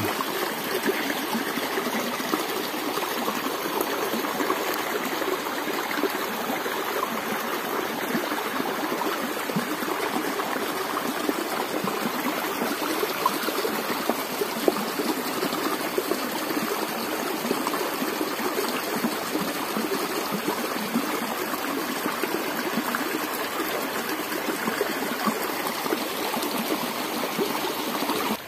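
Small rocky stream running steadily where it spills past a boulder into a pool, a continuous rush and splash of water.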